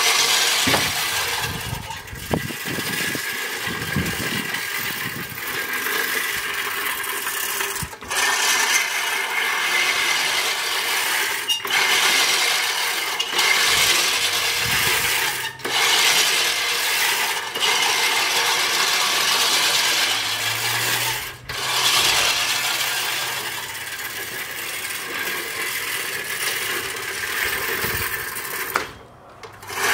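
Sun Joe reel lawn mower's spinning blades clattering and whirring through tall grass, broken by short pauses every few seconds as it stops and starts again.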